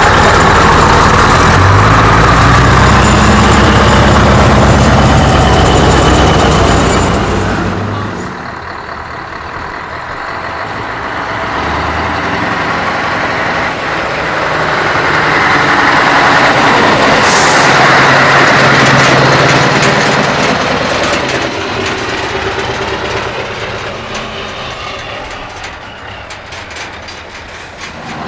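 Scania T-series bonneted trucks' diesel engines running loudly as the trucks drive past, one loud pass that stops abruptly, then a second truck approaching, loudest about two-thirds through, and fading away. A short air hiss comes midway.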